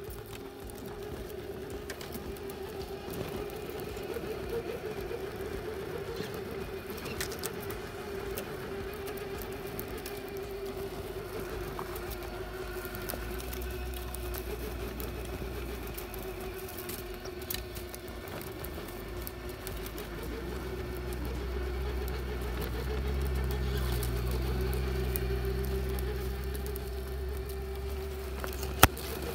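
Electric motor and gears of an Axial SCX6 radio-controlled crawler whining at a steady pitch as it drives. A low rumble comes in about halfway and grows, and there is a single sharp knock near the end.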